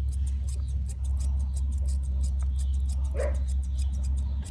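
Newfoundland dog giving one short whine about three seconds in, over a steady low rumble and a fast, even, high-pitched ticking.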